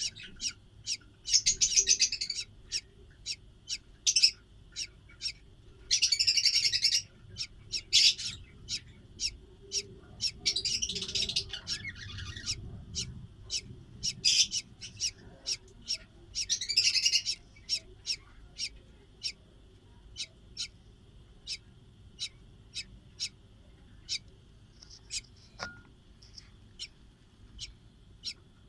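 Budgerigars chirping: a steady run of short sharp chirps at about two a second, broken by several louder bursts of chatter about a second long each.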